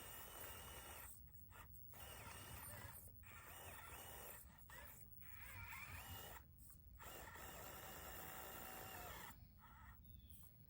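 Faint whine of a 1/24 scale RC rock crawler's small electric motor and geared drivetrain, starting and stopping about five times as it is driven in short bursts up a steep slope.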